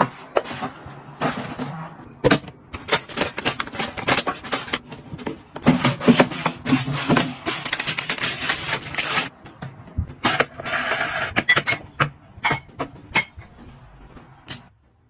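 Household items being handled and put away: a run of light clicks, taps and knocks of containers and lids, with longer stretches of rustling packaging around the middle.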